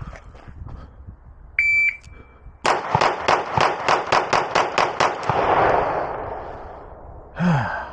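A shot timer gives one start beep, then a Beretta pistol fires a rapid string of about ten shots, roughly four a second. The reports echo and fade for about two seconds after the last shot.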